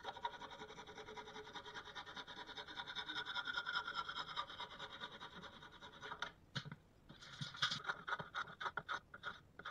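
Hand saw cutting through a pallet-wood board in quick, even back-and-forth rasping strokes. About six seconds in, the strokes become separate and sharper, with short pauses between them.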